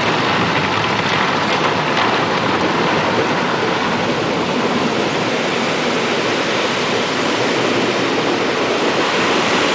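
Automatic car wash heard from inside the car: water spray and spinning cloth brushes sweeping over the windshield and body make a loud, steady rushing noise.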